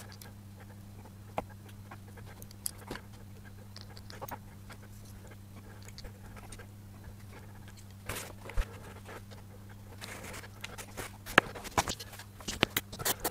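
Faint clicks and taps of small metal airbrush parts being handled on a tray, over a steady low hum. The handling grows busier in the last few seconds.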